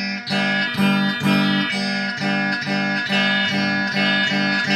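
Guitar playing a repeated chord in a steady rhythm, about two strokes a second, in an instrumental stretch between sung lines of a song.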